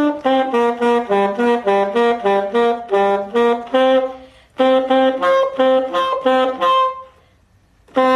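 Saxophone playing a quick phrase of short, separate notes, with a brief break about halfway and a stop near the end. It is a pupil's practice playing, good for one week of learning but not yet clean at the transition.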